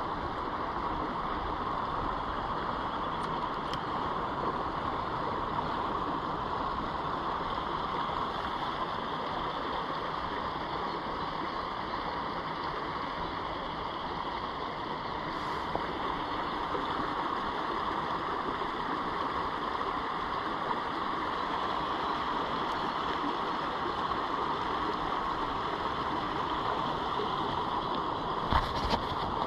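Small stream running over a riffle, a steady rushing babble of water. A couple of short knocks near the end.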